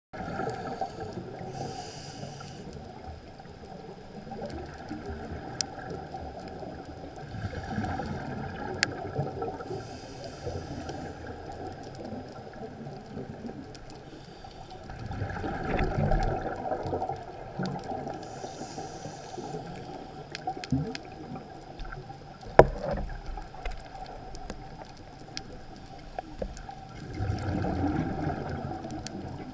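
Underwater sound of a scuba diver breathing through a regulator: a short hiss on each inhale and a louder low rumble of exhaled bubbles, repeating roughly every eight seconds. Scattered faint clicks run through it, and a single sharp knock comes about two-thirds of the way through.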